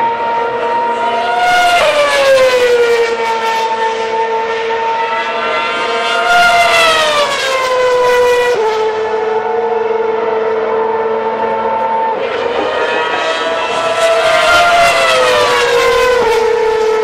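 Racing car engine sound: a high, steady drone that slides up and falls back three times.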